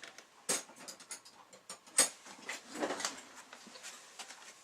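Irregular taps, knocks and clicks from hands shaping bread dough on a countertop, with one sharp click about two seconds in.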